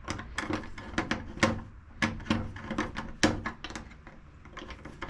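Irregular clicks and knocks of deadbolt lock parts being handled and fitted into the bored hole in a wooden door, a few taps a second with a quieter spell near the end.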